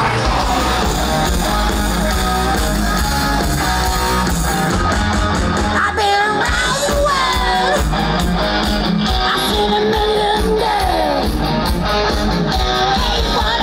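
Rock music: electric guitar over bass and drums with a steady beat. A guitar bends and slides notes about six and again about ten seconds in.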